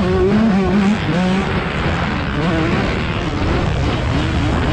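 KTM 125 two-stroke dirt bike engine revving up and down under hard riding, its pitch rising and falling with the throttle, heard from an onboard camera with wind rush.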